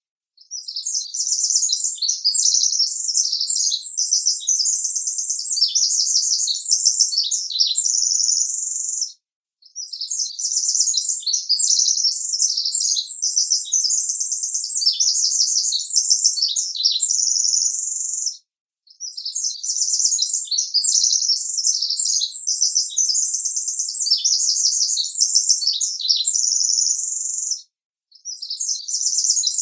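Birds chirping in dense, rapid, high-pitched twitters. The same stretch of chirping repeats as a loop, breaking off into a brief silence about every nine seconds.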